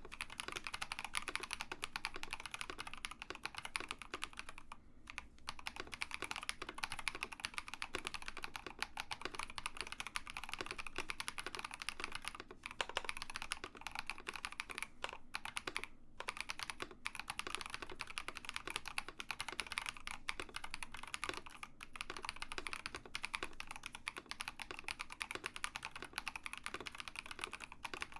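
Continuous fast typing on a mechanical keyboard with Builtbynim long-pole linear switches (nylon top housing, polycarbonate bottom housing, POM stem) in an Ikki68 Aurora, a dense run of key clacks with a few short pauses.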